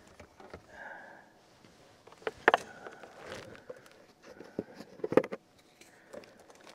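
Plastic gallon water jug being picked up and handled, with scattered knocks and rustling and two sharp loud knocks, about two and a half and five seconds in.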